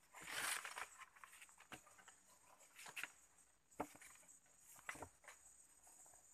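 Faint rustling with a brief louder rustle about half a second in, then a few sharp clicks and taps, over a steady faint high-pitched hiss. This is handling noise and footsteps from someone moving over a trap built of sticks on the forest floor.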